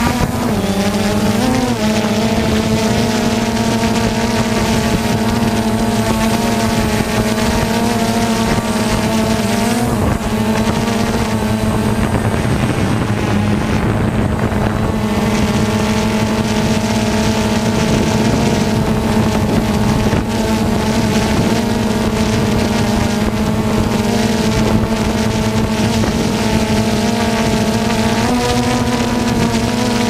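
DJI Phantom 2 quadcopter's four motors and propellers humming steadily at hover, stepping up slightly in pitch near the end as it starts to climb. Strong wind buffets the microphone.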